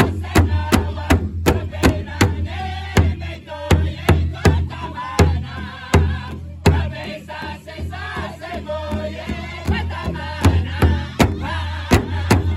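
Powwow drum group: several men singing together in a chant while striking one large drum in unison. The drumbeat is steady at about three strikes a second at first, thins to scattered strikes in the middle, and comes back strong near the end.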